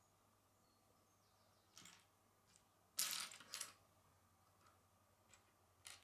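Plastic Lego bricks being handled and pressed together: a faint click about two seconds in, a louder short clatter of clicks about three seconds in, then a few light ticks.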